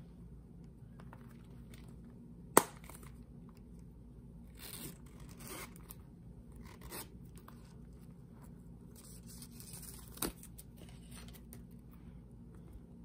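A Tory Burch Kira chevron leather bi-fold wallet being handled: its snap fastener shuts with a sharp click about a fifth of the way in, then its metal zipper is run along the edge in short rasps, closed and later opened again. A second, lighter click comes about three-quarters of the way in.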